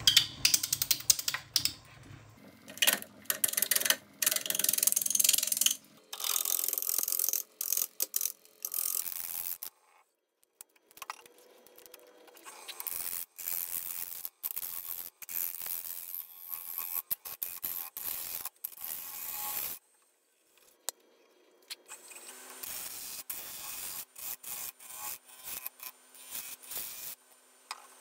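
Wood lathe spinning an epoxy resin and wood blank while a hand-held turning tool cuts its face, giving bursts of high scraping noise broken by short pauses. It goes nearly silent around ten seconds in and again around twenty seconds in.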